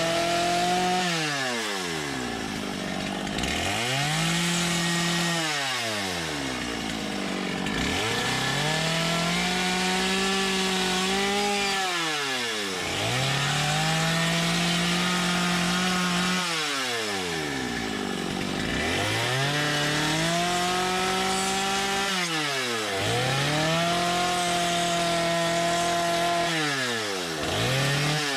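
Two-stroke chainsaw revved to full throttle again and again, each time held high for a second or two while it cuts into wood and then let drop back toward idle, about every four seconds.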